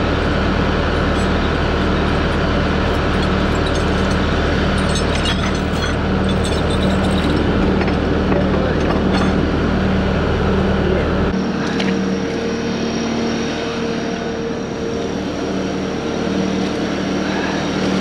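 Diesel engine running steadily at idle. Its deepest rumble drops away about eleven seconds in.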